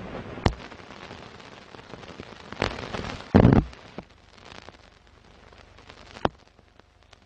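Old-film crackle effect: a steady crackling hiss with sharp pops about half a second in, near three seconds and past six seconds, and a heavier thump at about three and a half seconds. The crackle thins out after about four seconds.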